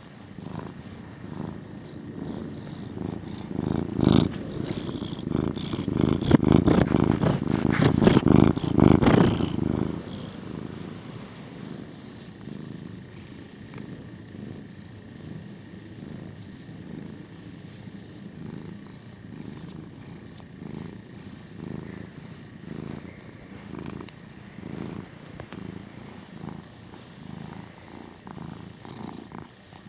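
Russian Blue cat purring continuously while being massaged. The purring is much louder for several seconds in the first third, then settles to a softer, steady purr.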